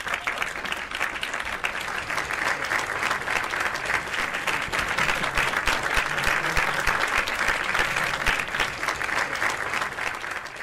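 Crowd applauding: a steady round of many hands clapping that fades away at the very end.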